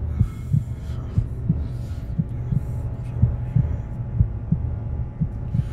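Heartbeat sound effect: a low double thump about once a second over a steady low hum, a suspense cue in a film's sound design.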